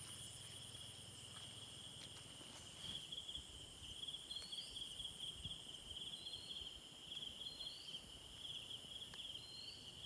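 Faint, steady chorus of insects trilling at one high pitch with a fast pulsing texture, with a few short rising chirps over it.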